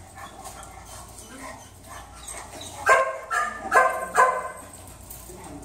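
A dog barking four times in quick succession, about three seconds in.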